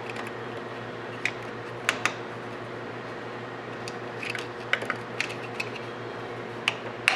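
Metal hand tools clicking and tapping against engine-bay parts as a nut and bracket are worked loose, with a handful of sharp, irregular clicks over a steady low hum.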